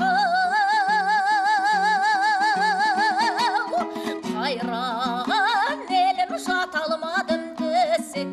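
Folk music: a long held melody note with wide, even vibrato for about three and a half seconds, then shorter wavering phrases, over a plucked-string accompaniment repeating a low figure.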